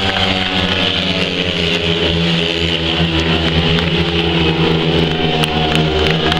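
Speedway motorcycles racing around the track, several single-cylinder engines running hard together in one steady, multi-pitched drone.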